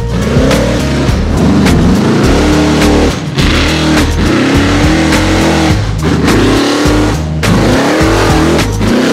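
Rock bouncer tube buggy engine revving hard under load while it climbs a steep dirt hill, the pitch surging up and falling back several times, over background music with a steady beat.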